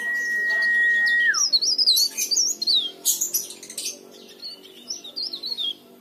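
Cikrak daun warbler singing: rapid high twittering phrases of quick rising and falling notes. A long steady high whistle slides down and stops about a second in, and the song thins out and gets quieter in the second half.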